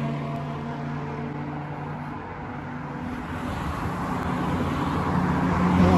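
Cars passing on a wide road. One car's engine hum fades away over the first couple of seconds, then another vehicle's tyre and engine rumble grows louder toward the end as it approaches.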